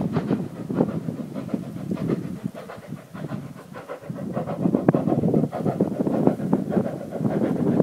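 Steam locomotive working, its exhaust chuffing in repeated beats. The beats fade briefly about three seconds in, then come back stronger.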